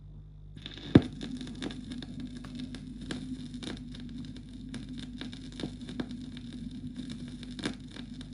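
Phonograph stylus set down into the groove of a spinning 16 2/3 rpm record on a Philips record player. A sharp knock as it lands about a second in, then steady surface noise with crackle and frequent scratch clicks from the worn disc.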